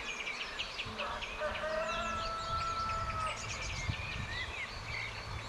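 Small birds chirping and twittering throughout, with a rooster crowing once in one long, steady call from about a second and a half in.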